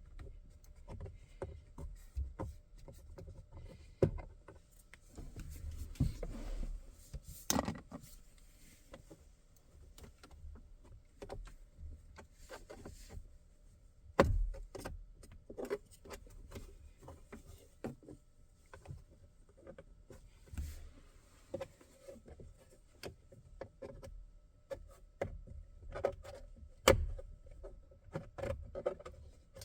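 Irregular clicks, knocks and scraping of a pick tool prying apart the plastic upper and lower steering-column shroud covers, with a few louder knocks among them.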